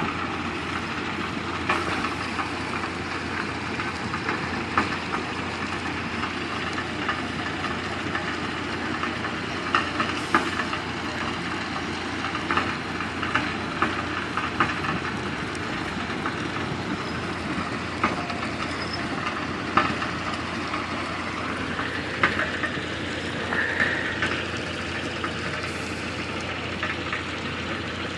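Heavy diesel construction machinery running steadily, with sharp clanks and knocks scattered through it every second or few.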